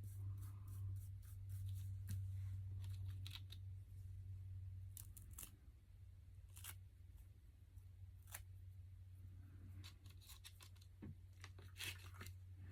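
Faint sounds of decoupage paper being worked by hand: scattered soft clicks and rustles over a steady low hum.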